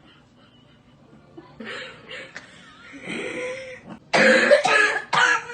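A person in a coughing fit: a few weaker coughs, then a loud run of coughs bunched together in the last second and a half.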